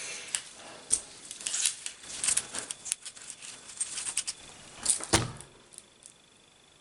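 Small metal soldering-iron parts handled on a bench: scattered clicks and light metal clinks, with a heavier knock about five seconds in, then it goes quiet.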